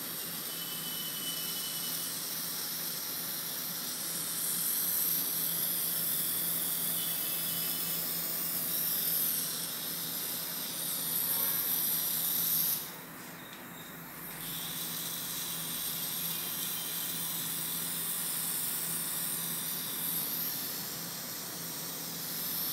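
Airbrush make-up gun spraying: a steady hiss of air, briefly cut off for about a second and a half midway, over a steady low hum.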